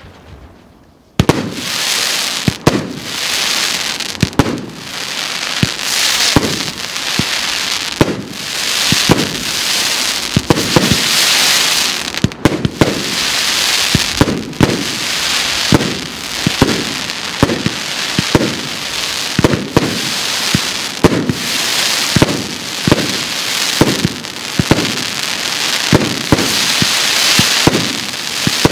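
Russkaya Pirotekhnika RS8260 36-shot, 30 mm (1.2-inch) consumer fireworks cake firing its shots one after another, about one or two a second, each a sharp thump. A continuous crackling from the crackling comets and crackling stars fills the gaps. The volley starts suddenly about a second in.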